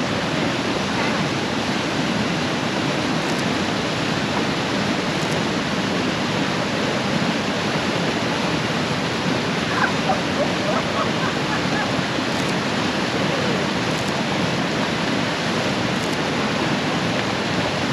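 Steady rush of whitewater on the Tully River, the flow raised by water released from the power station.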